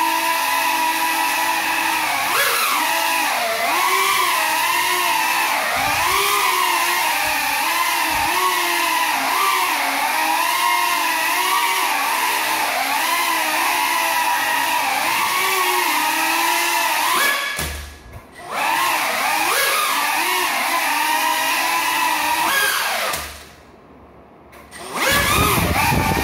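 Small FPV quadcopter's motors whining in flight on broken propellers, the pitch wavering up and down with throttle. The motors cut out briefly about two-thirds through and again for about two seconds near the end, then spin back up with a low rumble.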